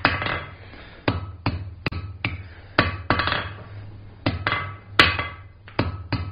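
Hand hammer striking hot mild steel on an anvil: about a dozen blows in uneven groups, each with a short metallic ring. The flat face of the hammer is straightening and smoothing a forged ball end, planishing it.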